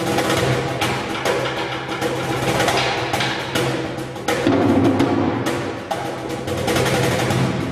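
Hand drumming on a wooden cajón box drum: a quick, irregular run of slaps and taps on the wood, with a deeper boomy tone underneath.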